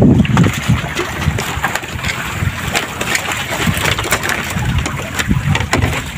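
Wind buffeting the microphone over the wash of the open sea, with a few light knocks and rustles scattered through.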